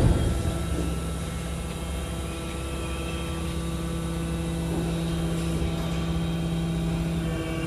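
BYD electric garbage truck running at close range: a steady electric hum made of several steady tones over a low rumble.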